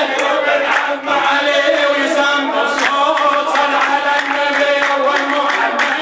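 A male munshid singing an Arabic devotional chant (inshad, a jalwa) into a microphone, his voice carried through a PA system.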